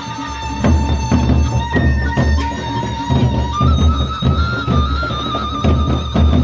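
Gendang beleq ensemble playing: big barrel drums beating a fast driving rhythm with clashing hand cymbals, over a held high melody note that steps up in pitch a little past halfway.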